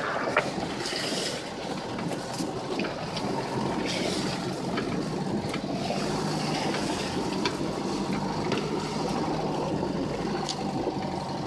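A 4x4 driving slowly along a rutted dirt track: steady engine and tyre rumble, with scattered knocks and rattles as it goes over the ruts.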